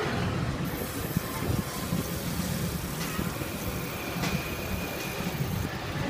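Steady low rumble of background road traffic, with no distinct event standing out.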